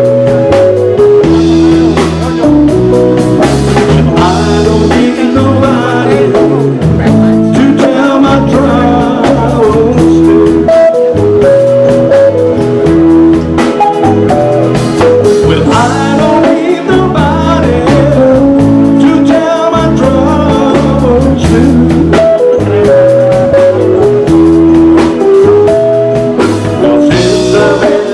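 A band playing a song with a singing voice over bass, guitar and drums, with a steady beat.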